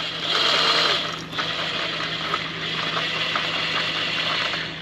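Cordless drill spinning the screw of a Libra 9,000 lb scissor stabilizer jack, raising the jack. A louder spurt in the first second, then a steady run that stops near the end.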